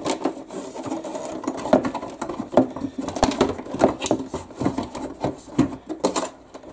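A battery pack and its wires being pushed into place by hand inside a plastic RC boat hull: irregular knocks, taps and rustling of the pack and leads against the hollow plastic, several a second.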